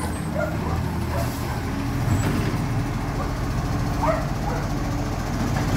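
Side-loading garbage truck's diesel engine running steadily as the truck works its way along the kerb, with a few short, high chirps over it.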